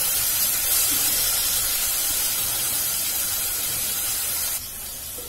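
Chopped onion and tomato frying in hot oil in a pot, a steady sizzling hiss that drops suddenly in level near the end.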